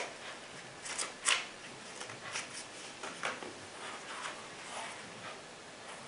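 Soft rustling and crackling from unboxed contents being handled: packaging and paperwork. The rustles come in short scattered bursts, the loudest a little over a second in.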